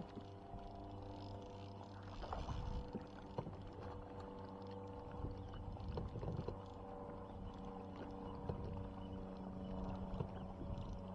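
Boat motor running at a steady pitch, with light knocks now and then.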